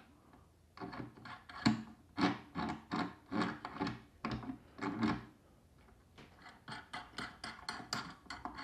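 Hands adjusting a chisel in a sharpening jig on its metal guide bar: a run of short rubbing, scraping strokes, about two a second, then lighter ticks and scrapes near the end.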